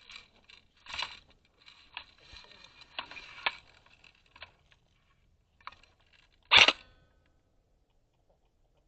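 Scattered faint rustles and clicks, with one louder, short rustling burst about six and a half seconds in, then almost nothing.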